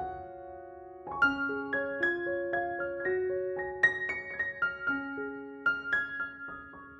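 Background music: a gentle piano melody of single notes, softening briefly about a second in before picking up again.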